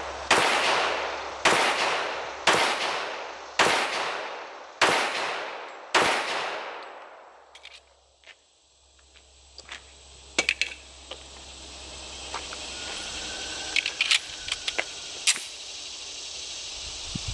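Para Ordnance stainless 1911 pistol in .45 ACP firing 230-grain full metal jacket rounds: six shots about a second apart, each fading over about a second. After the last shot come a few light metallic clicks as the pistol is handled.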